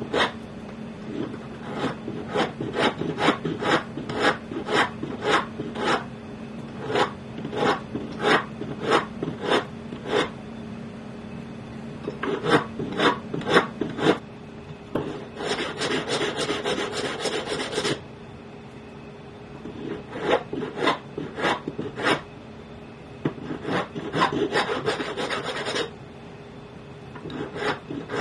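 Flat hand file rasping across the edge of a metal dog tag held against a wooden bench pin, in separate strokes about two a second, broken by a few short pauses and two runs of quicker, continuous filing.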